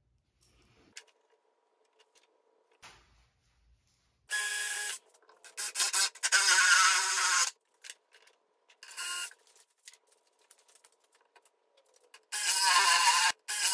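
DeWalt 20V cordless drill boring into plywood with a spade bit, run in several short bursts of about half a second to two seconds, its motor whine wavering as the bit cuts. Faint handling clicks come before the first burst.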